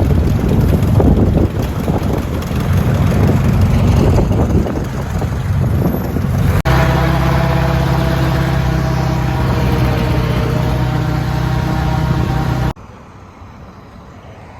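Airboat engine and propeller running loud. It starts as a rough, noisy rush, and about six and a half seconds in switches abruptly to a steady engine drone. It cuts off suddenly near the end to a much quieter background.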